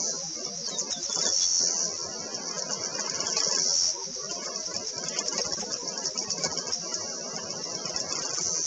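Insects shrilling steadily: a high, rapidly pulsing buzz that swells louder twice, over a low background murmur.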